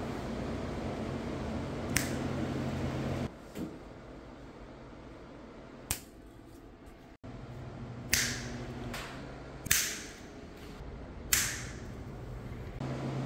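Fingers snapping sharply, about five times a couple of seconds apart, each snap ringing briefly in a small room, over a steady low hum.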